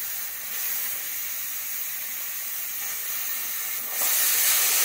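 Pressure cooker hissing as steam escapes through its valve, a sign that it has come up to pressure. A steady high hiss that swells louder for about a second near the end.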